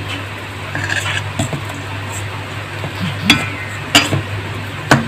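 Metal tongs stirring and scraping chicken pieces through a flour-and-starch coating in a glass bowl, with a few sharp clicks of metal on glass. A steady low hum runs underneath.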